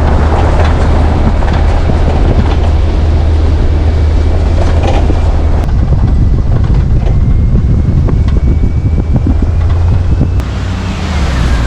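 2004 Land Rover Discovery 2 on the move: a steady low rumble of engine and road, with many short irregular metallic knocks and rattles. This is the clanging noise the owners are tracking, which they suspect comes from worn exhaust bushings.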